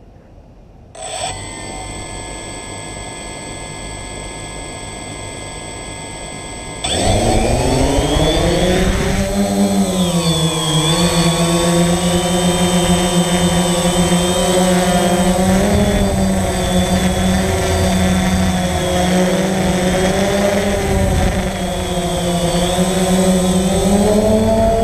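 DJI Phantom quadcopter's electric motors and propellers, heard from the GoPro mounted on the drone. About a second in the motors start and spin at idle with a steady hum; near the seven-second mark they spin up sharply for takeoff, the pitch rising, then settle into a loud steady buzz that wavers slightly in pitch as the drone hovers and flies.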